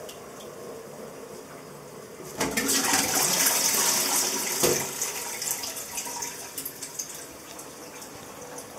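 Water splashing and running in a toilet bowl. It starts suddenly a couple of seconds in, runs strongly for about two and a half seconds, then trails off into small trickles and drips.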